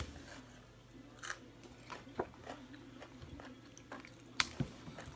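Crisp crunching and snapping of raw vegetables such as broccoli, a handful of separate sharp cracks with the loudest a little over four seconds in.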